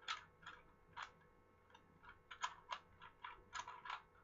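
Plastic Rubik's speed cube being scrambled by hand: its layers click and clack in quick, irregular turns, with a short pause a little over a second in.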